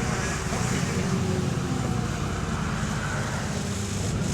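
Bus engine running steadily with a low hum, heard from on board a bus that has an exhaust leak.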